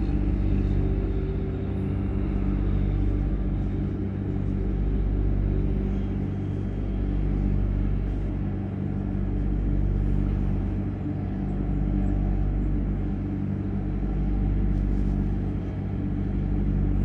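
A steady low mechanical hum made of several steady tones, swelling and fading slowly about every two and a half seconds.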